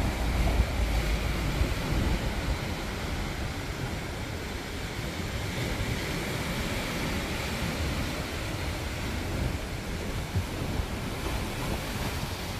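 Sea surf washing in white water over a row of concrete tetrapods, a steady wash of breaking waves. Wind buffets the microphone with a low rumble, heaviest in the first couple of seconds.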